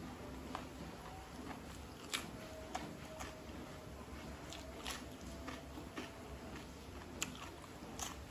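Close-miked chewing and biting of raw cucumber, with scattered crisp crunches and wet mouth clicks.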